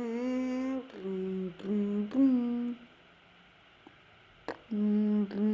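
A person humming a short tune in a few held notes, in two phrases with a pause between, with a single sharp click just before the second phrase.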